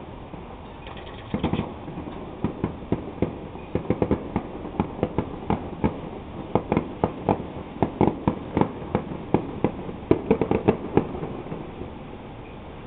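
Fireworks going off: a fast string of sharp bangs and pops, several a second at the busiest, thinning out in the last couple of seconds.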